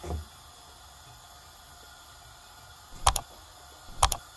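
Two sharp mouse-click sound effects, each a quick double click, about three and four seconds in, from a subscribe-button animation. Near the start there is a soft low thud as a burger bun is pressed down in the frying pan.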